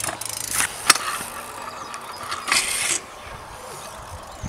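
BMX bike riding on concrete skatepark ramps: a sharp knock about a second in, then a short loud rush of tyres rolling on concrete that cuts off about two-thirds of the way through, followed by quieter moments as the bike is in the air.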